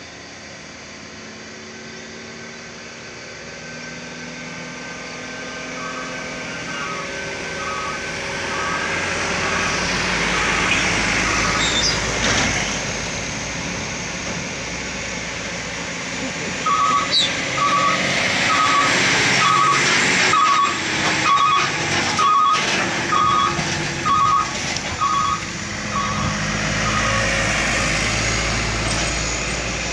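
Container truck's diesel engine labouring up a steep grade, growing louder as it nears and passes. Over it an electronic warning beeper sounds a steady series of short beeps, about two a second, in two long runs. A few sharp knocks come in the middle of the second run.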